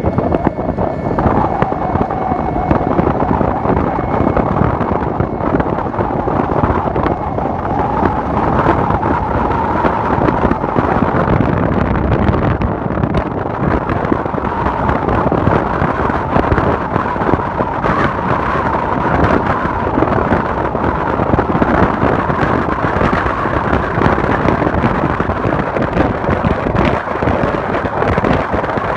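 Car driving along, heard from inside: steady road, engine and wind noise, with a faint hum under it that drifts slightly in pitch.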